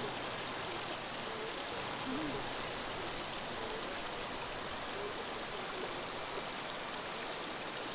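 Steady rush of white water on a river.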